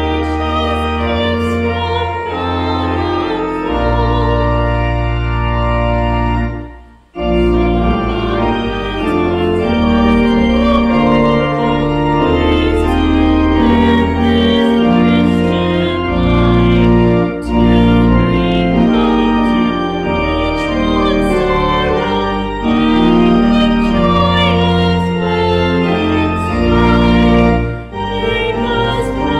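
Organ music: slow, sustained chords over long held bass notes, breaking off briefly about seven seconds in.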